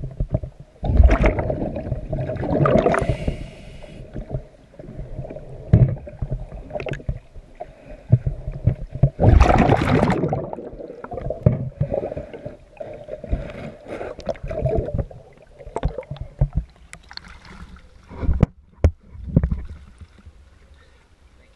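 Underwater sound of a scuba diver's exhaled bubbles gurgling in bursts a few seconds apart. Scattered knocks and scraping against a boat hull come between them, over a steady faint hum.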